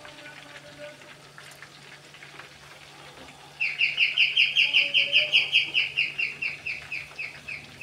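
Chicken pieces deep-frying in oil with a soft crackling sizzle. About three and a half seconds in, a bird starts a rapid series of high, sharp call notes, about six a second, which are loud at first and then slow and fade.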